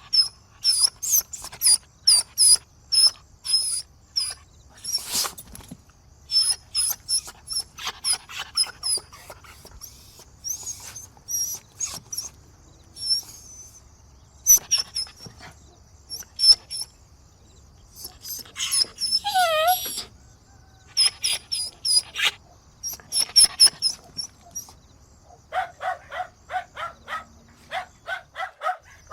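Puppies crying: runs of short, very high-pitched yelps and squeals, a longer wavering whine about two-thirds of the way through, then fast yapping barks, about three a second, near the end.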